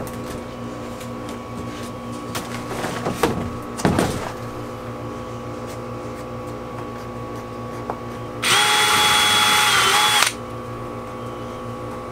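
A plywood sheet knocks and thumps as it is set down into an aluminum jon boat. Then a cordless drill runs with a steady whine for about two seconds, driving a bolt into a rivnut in the boat floor, its pitch dipping briefly just before it stops.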